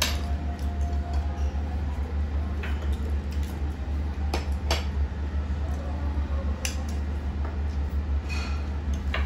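Metal spoons and forks clinking now and then against ceramic bowls and plates, a handful of sharp separate clinks over a steady low hum.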